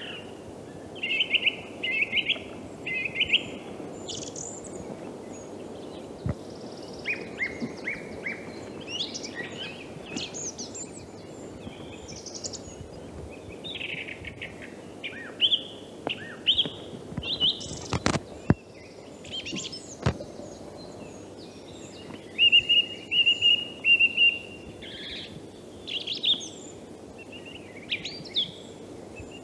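Song thrush singing: short phrases of clear, whistled notes, each phrase repeated several times before the next, over a steady low background noise. A single sharp click is heard about two-thirds of the way through.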